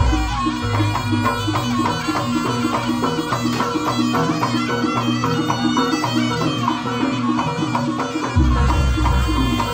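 Javanese jaranan ensemble music: a quick repeating pattern of gamelan-style pitched notes over steady drumming, with a reedy wind melody on top. A deep low boom swells in about eight and a half seconds in.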